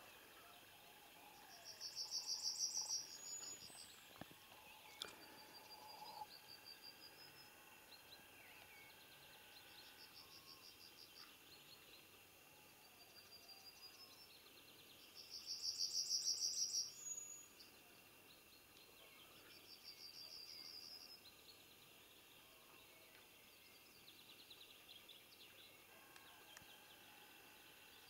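Songbirds singing: short, rapid trilled phrases repeated every few seconds, the two loudest about two seconds in and again about fifteen seconds in, each lasting a second or two.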